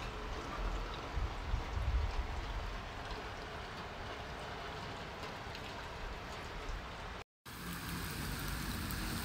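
Steady rain falling on a wet street, heard as an even hiss with low rumble on the microphone. The sound cuts out briefly about seven seconds in, then the rain resumes with a faint traffic hum under it.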